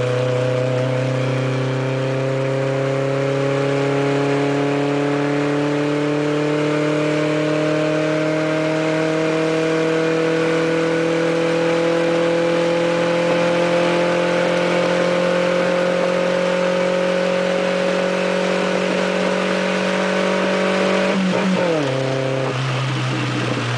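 Volkswagen Saveiro pickup's engine held at high revs through a loud, rumbling exhaust, its pitch creeping slowly upward, then wavering and dropping back a little near the end.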